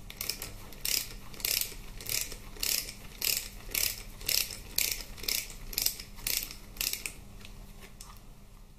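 Hand ratchet clicking in short bursts, about two a second, as a hex-bit socket backs out a loosened Allen head bolt on a Harley-Davidson Twin Cam 88 engine case. The clicking stops about seven seconds in.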